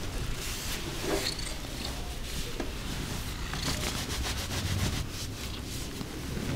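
Terry towel rubbing over a wet Persian cat's fur: a string of short scratchy rustles, over a faint steady low hum.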